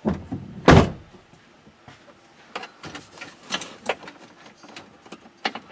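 A loose plastic truck dashboard being worked free and shifted in the cab: one loud thump a little under a second in, then scattered knocks, clicks and creaks as it is jostled.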